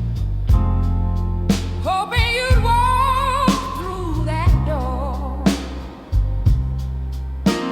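Slow soul-blues ballad: a singer holds a long note with wide vibrato over a drum beat about once a second and a steady bass line.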